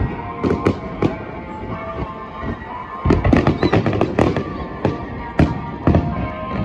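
Aerial fireworks going off in an irregular run of bangs and crackles, coming thicker from about halfway, with music playing underneath.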